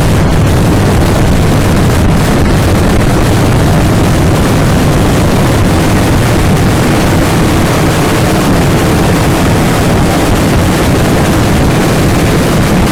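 A dense, continuous fireworks barrage: explosions so close together that they merge into one steady, loud low rumble with no single bang standing out.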